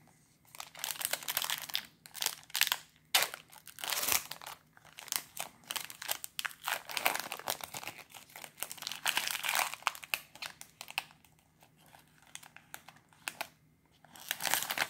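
Foil wrapper of a Magic: The Gathering Double Masters booster pack crinkling in the hands in irregular crackly bursts, then being torn open near the end.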